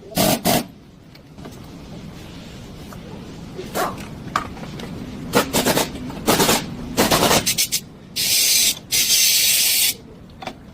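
Hand tools knocking and clanking on metal during car suspension work, then two hissing spray bursts of about a second each near the end.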